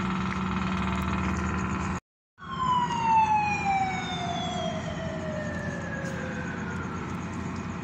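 A siren winding down: one long wail that falls steadily in pitch over about four seconds, over a steady background hum of road traffic. The sound cuts out briefly about two seconds in, just before the wail starts.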